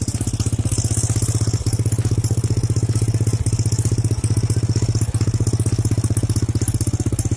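UD-15 single-cylinder four-stroke carburetted engine of a homemade mini tractor built from an MTZ-05 walk-behind tractor, running steadily with an even, rapid chug of firing pulses. The sound cuts off suddenly near the end.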